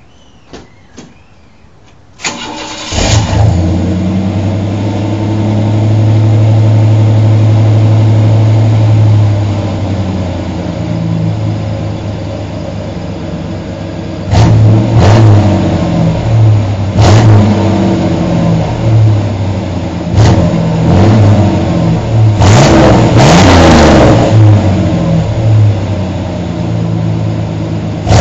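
1990 Chevrolet S-10's 4.3-litre V6, breathing through a high-flow cat and a Flowmaster 40 muffler, cranks and fires about two seconds in. It runs at a high idle, then settles lower. From about halfway it is blipped several times, with a longer rev a little before the end, dropping back to idle between revs.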